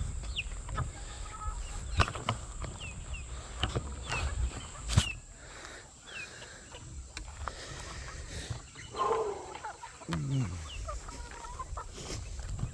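Serama bantam chickens clucking, with many short high falling chirps and a couple of sharp knocks, the loudest about five seconds in.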